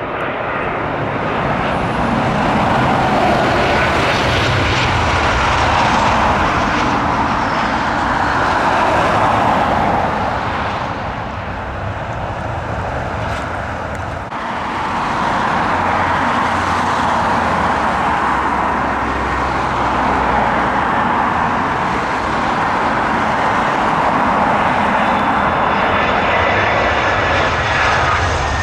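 Jet airliner engines passing close: loud, steady jet noise that dips briefly about halfway through and then swells again.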